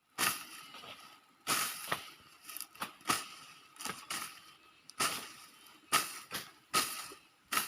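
A hand tool chopping or slashing through thick grass: a dozen or so sharp, hissy strokes at an uneven pace, about one every half second to a second.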